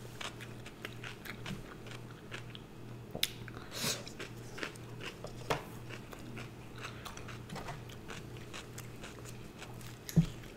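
Close-up eating sounds: chewing and biting on fried chicken fingers and fries, with irregular small crunches and wet mouth clicks.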